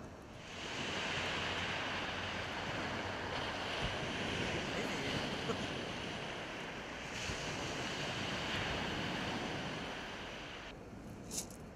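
Sea surf washing over a shingle beach: a steady rushing hiss that swells up just under a second in and stops fairly suddenly shortly before the end.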